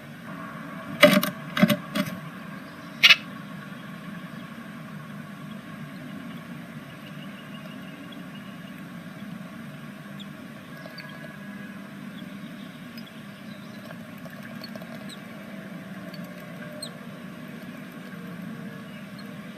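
Four sharp knocks and taps in the first three seconds, over a steady hiss and faint hum from the nest-box camera's microphone. The knocks fit a great tit moving about or pecking inside the wooden nest box.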